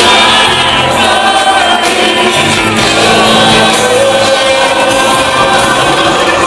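Live Christian band playing loud, with several singers, a trombone and saxophone horn section and drums.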